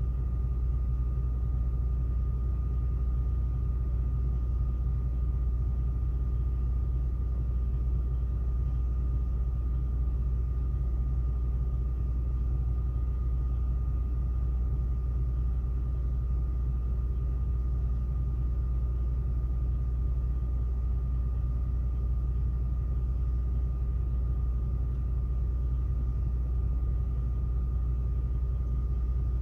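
Steady low rumble of an idling truck engine, unchanging throughout, with a faint steady high whine over it.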